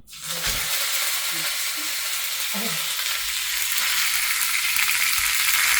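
Curry leaves and urad dal tempering in hot oil in a small pan, sizzling and spluttering steadily.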